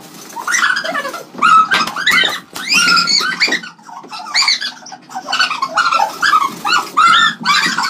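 A cornered rodent squealing in distress: rapid runs of short, high, arching squeals, with a brief pause about halfway through, as it is chased and swatted with a slipper.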